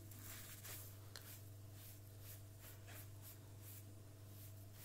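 Faint, repeated strokes of a wet sponge rubbing over the deck of a Technics SL-1210MK2 turntable, over a low steady hum.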